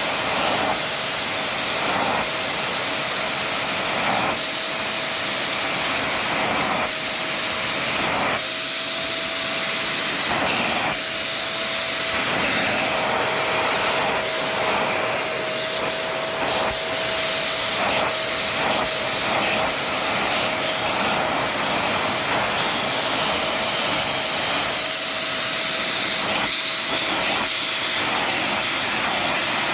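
Vacuum cleaner running over a shag rug, a steady rush of air with a motor whine, the sound surging slightly with each push and pull of the head.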